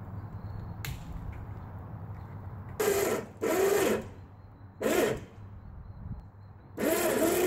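A 12-volt electric winch motor run in short bursts from its handheld wired remote, four times, the pitch rising and falling as the motor starts and stops, the last burst starting near the end; it is reeling the aircraft cable that lifts a hitch-mounted wooden snow plow.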